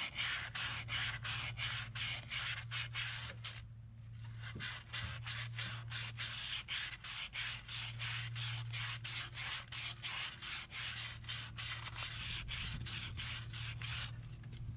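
Sandpaper rubbed back and forth by hand on rusty metal in the bore where the wheel bearing seats, cleaning off rust. The strokes come about three a second, with a brief pause about four seconds in.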